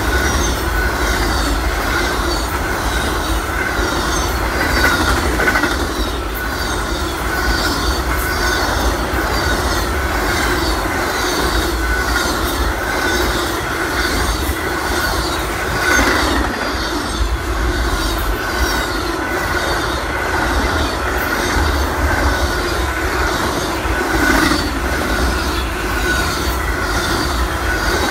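Long train of Amtrak Auto Train autorack cars rolling past: steel wheels on rail with a steady low rumble, rhythmic clicking of wheels over rail joints, and a steady high wheel squeal.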